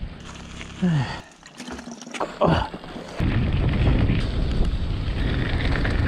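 Cannondale RZ120 mountain bike rolling over a rough gravel forest road: tyre rumble and rattle with wind on the microphone, growing loud about three seconds in as it descends.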